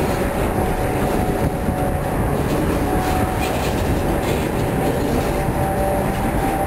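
Freight boxcars of a juice train rolling past close by, wheels rumbling and clacking over the rail joints, with a thin steady squeal coming and going.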